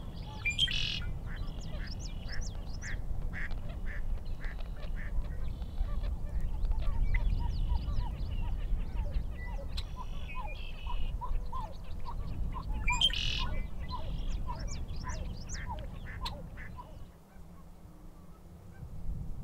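Male red-winged blackbird singing, one song phrase about a second in and another about 13 seconds in, among many short chirps and call notes from other birds. A low rumble runs underneath and drops away near the end.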